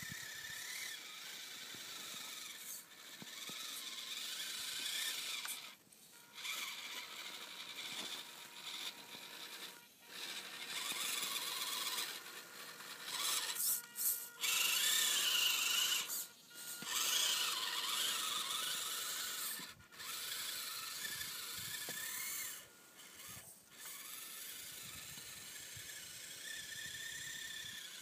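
Losi Micro Rock Crawler's small electric motor and gearbox whining as the RC truck drives through snow, the pitch wavering with speed. It cuts out briefly about six times as the throttle is let off, and is loudest midway, when the truck is close.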